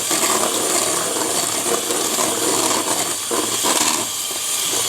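Electric hand mixer running steadily, beating pancake batter, with a high motor whine over the beaters churning in the bowl; the motor begins to wind down at the very end.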